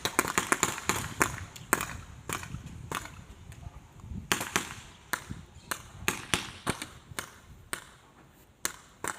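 Airsoft guns firing: sharp snapping shots, a quick run of them in the first second, then scattered single shots and short pairs.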